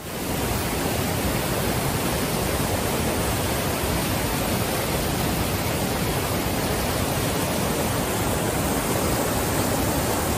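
Waterfall close by: a steady, loud, unbroken rush of falling water.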